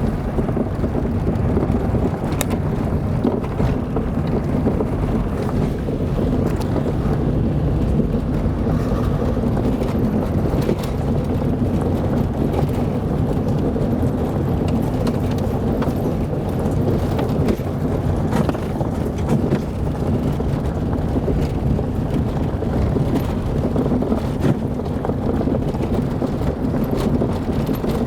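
Car driving on an unpaved dirt road: a steady low rumble of engine and tyres, with small knocks and rattles throughout.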